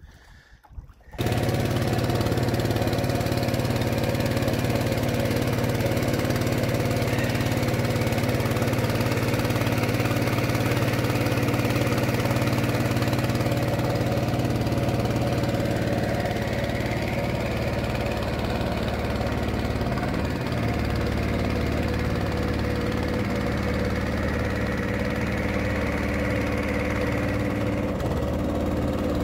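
Small boat's outboard motor running steadily under way, a loud even drone that comes in abruptly about a second in.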